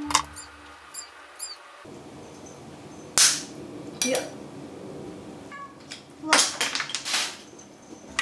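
Avocado pits being worked out of halved avocados on a wooden cutting board: a sharp crack about three seconds in as a pit snaps loose, a short high cry right after, then a few more scraping knocks.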